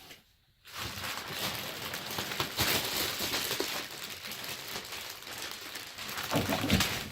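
Packaging crinkling and rustling continuously, with a few low knocks near the end.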